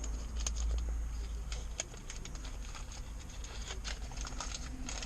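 Light, irregular clicks and taps of small parts being handled by hand, over a steady low hum.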